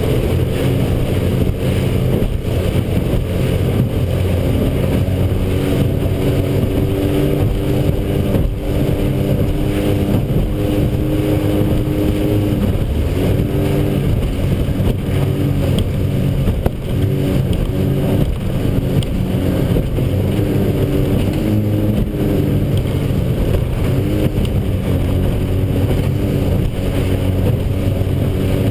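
A racing powerboat's outboard engine running hard at speed. Its note wavers and dips every second or so over a steady rush of water and wind.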